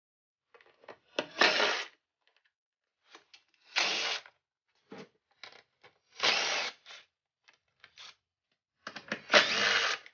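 Impact wrench firing in four short bursts of about half a second each, backing out fasteners during a dirt bike teardown, with small clicks of tools and parts in between.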